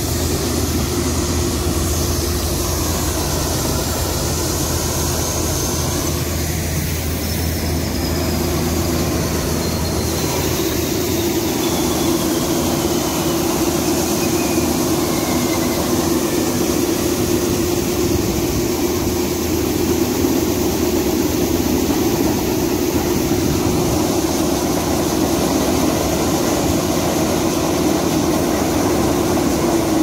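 Combine harvester running steadily while it unloads threshed wheat through its unloading auger: a constant engine-and-machinery drone with the rush of grain.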